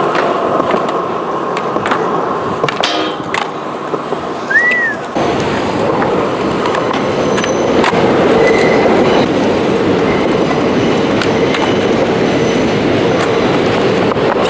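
Skateboard wheels rolling on concrete: a continuous rumble with scattered clicks and knocks from the board, and a brief squeak about a third of the way in.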